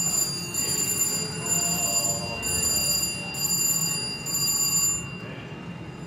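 Slot machine's electronic chime: a high ringing tone that pulses on and off about once a second, five times, then stops; casino hubbub underneath.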